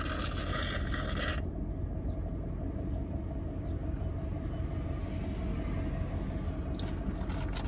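Steady low rumble of a car idling, heard from inside the cabin. A loud even hiss over it cuts off abruptly about a second and a half in.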